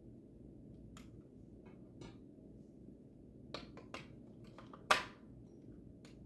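A few scattered light clicks and knocks from handling an animatronic scarecrow prop, the loudest about five seconds in, over a low steady hum.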